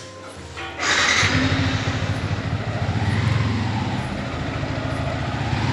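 A motor vehicle engine: quiet at first, then a sudden loud start a little under a second in, after which it runs steadily with a low hum.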